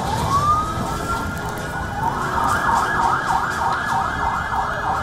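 Emergency vehicle siren: a long rising wail, then about two seconds in it switches to a fast up-and-down yelp of about three cycles a second, over a noisy street background.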